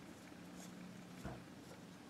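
Faint handling of a rifle's rear sight as its windage screw is unscrewed by hand, with one soft knock a little past a second in.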